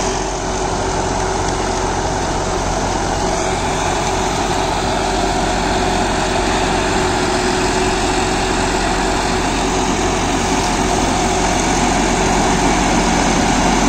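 John Deere 5075E tractor's 2900 cc common-rail diesel engine running steadily under load, driving a PTO rotary tiller that mulches banana stalks while the tractor creeps forward. The engine's hum holds one pitch and grows a little louder near the end.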